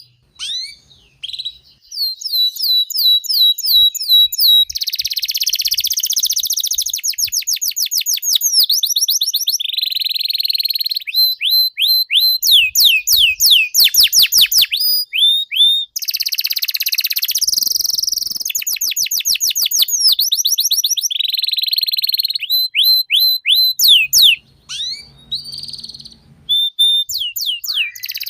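Domestic canary in full song: a long, almost unbroken run of fast repeated trills, quick sweeping notes and buzzy rolls, changing phrase every second or two with only brief pauses.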